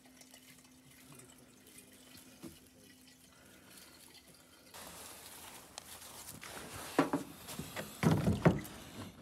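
Gasoline pouring from a large plastic jerry can into a small plastic gas can, the flow turning into a steady rushing hiss about halfway through. Near the end come a few louder clunks and knocks.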